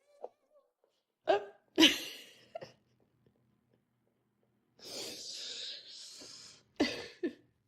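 A dog sneezing. There are sharp sneeze-like bursts in the first few seconds, a longer breathy hiss in the middle, and two more quick bursts near the end.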